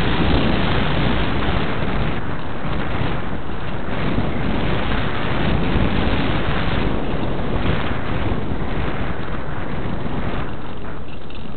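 Wind noise: air rushing over the microphone of a small camera mounted on a Parkzone Radian RC glider in flight, loud and steady, easing slightly near the end.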